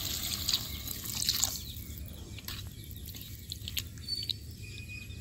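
Water poured from a bowl into a metal wok of cooking greens, splashing for about the first second and a half, then a spatula stirring and scraping against the wok with scattered clicks.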